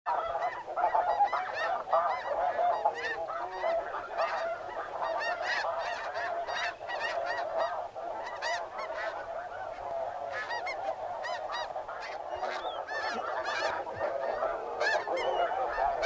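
A large flock of snow geese calling overhead, a continuous chorus of many overlapping short honks.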